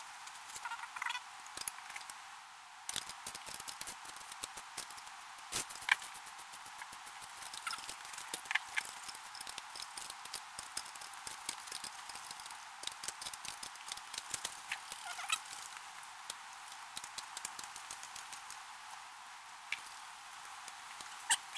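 A screwdriver and small hand tools clicking, tapping and scraping on the metal fittings of a MerCruiser Bravo II stern drive at the trim-ram pivot: a steady run of small irregular ticks, with a sharper knock about six seconds in and another near the end.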